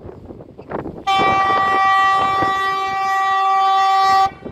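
Horn of an approaching single-car diesel railcar: one steady blast of about three seconds, a chord of more than one tone with a lower note joining partway through. It starts about a second in and cuts off sharply, with wind on the microphone around it.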